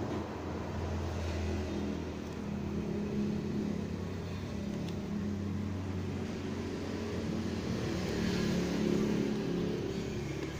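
Steady low rumble of vehicle engines, swelling a little around three seconds and again near nine seconds in.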